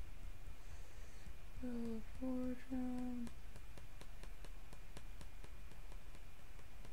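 A woman humming three short notes, the last held longest, about two seconds in. Faint clicks follow, a few a second.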